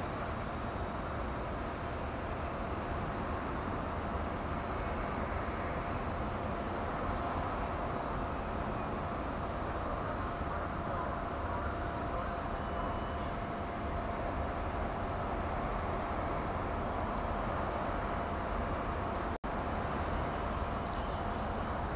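Steady shipyard and harbour background noise with a constant mid-pitched machinery hum. The sound cuts out for an instant about three seconds before the end.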